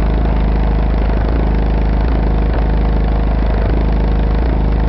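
Car-audio subwoofers (Audiobahn 12-inch subs on an Acoustik BAMF 4000-watt amplifier) playing very loud, deep bass music with a beat about once a second, heavily distorted and buzzing.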